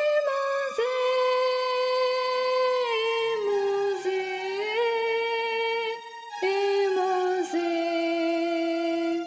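Theme song: a high voice singing long held notes without words, sliding between pitches, with a short break about six seconds in.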